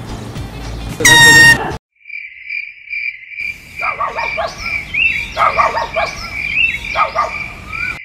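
Handheld canned air horn blasting once at close range about a second in, lasting under a second and cut off abruptly. After a brief silence comes a steady high-pitched ringing tone with chirping sounds over it.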